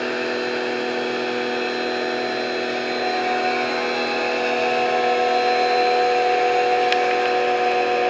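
Sun Joe electric pressure washer running with the trigger held, its motor and pump giving a steady hum over the hiss of water spraying from the wand.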